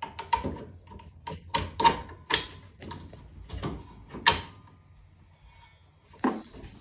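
A rapid, irregular series of sharp knocks and clacks, with a faint ringing after some of them, then a lull and one more knock near the end.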